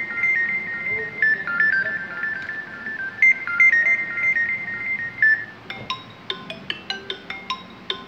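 Xiaomi Redmi 9T built-in ringtones previewing through the phone's speaker: a quick, high repeating melody, which about five and a half seconds in gives way to another ringtone of short, separate struck notes.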